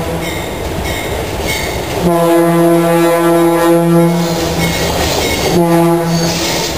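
Diesel locomotive air horn sounding several tones at once as the train approaches: a long blast starting about two seconds in, then a shorter one just after. The rumble of the locomotive and train runs beneath and between the blasts.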